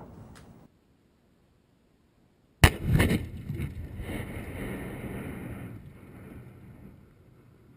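A demolition charge detonating about two and a half seconds in: a sharp bang, a second crack close behind it, then a rumble that dies away over about three seconds. Before it, the rumble of an earlier blast cuts off into silence.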